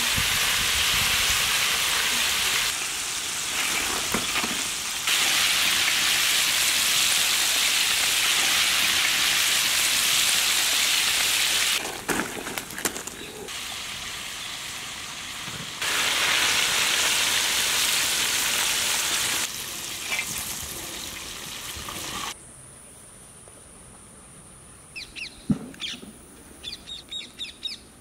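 Chicken pieces deep-frying in hot oil in an iron kadai, a loud, steady sizzle whose level jumps up and down at several cuts. About 22 seconds in the sizzle stops and birds chirp in short bursts.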